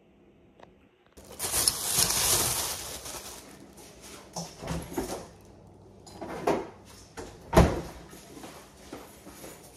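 A plastic grocery bag rustling loudly close by, then a series of knocks and bumps of things being handled in a kitchen, the sharpest about two-thirds of the way through.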